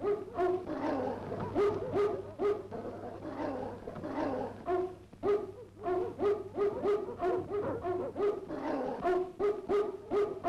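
A German shepherd barking aggressively at an agitator with a padded bite sleeve: short sharp barks about two a second, with a brief lull near the middle.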